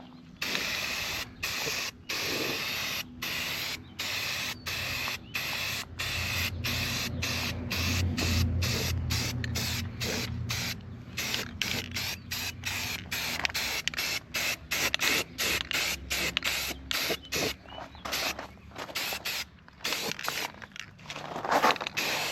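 Aerosol spray paint can hissing in repeated short bursts as drawers are sprayed, about one burst a second at first, then shorter and choppier near the end.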